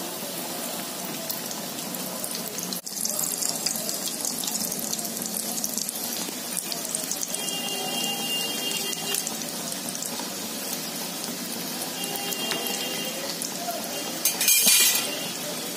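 Potato samosas deep-frying in hot oil over a medium flame: a steady sizzling hiss of the bubbling oil, with a brief louder burst near the end.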